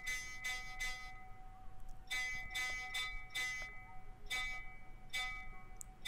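Metal temple bells struck again and again at uneven intervals, about a dozen times, their ringing tones hanging on between strikes.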